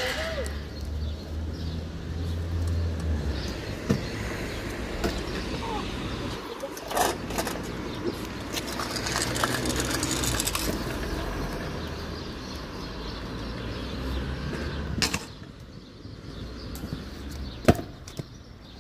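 Stunt scooter wheels rolling over rough pavement, with several sharp clacks of the scooter striking the ground; the loudest clack comes near the end.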